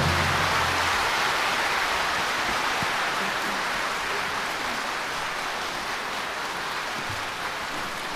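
Audience applause, slowly dying away.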